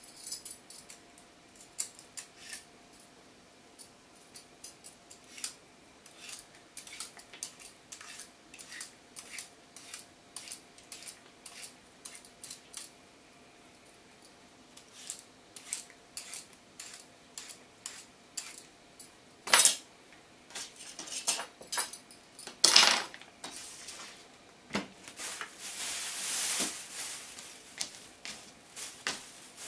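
Daikon radish being peeled with a hand peeler: a run of short, irregular scraping strokes. Past the middle come two loud knocks, and near the end one longer scrape.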